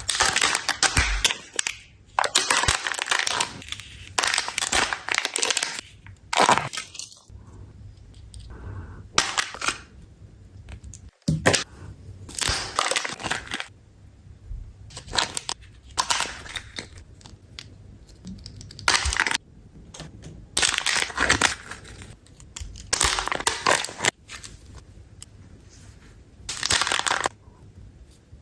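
Kinder Joy surprise eggs being unwrapped and opened by hand. The packaging crinkles and crackles in repeated noisy bursts of a second or two, with short pauses between.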